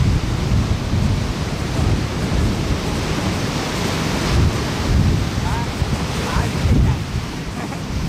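Ocean surf breaking and washing up a sandy, rocky beach in a steady rush that swells and eases, with wind buffeting the microphone as a low rumble underneath.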